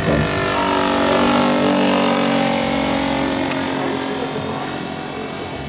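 KOLM 50cc four-stroke petrol engine of a 2.7 m Tiger Moth model biplane running in flight as the plane passes, its pitch sliding slowly down and the sound fading gradually toward the end.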